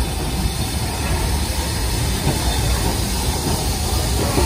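BR Standard Class 4 2-6-4 tank locomotive rolling slowly into the platform with its train, bunker first: a steady, loud rumble of wheels on the rails.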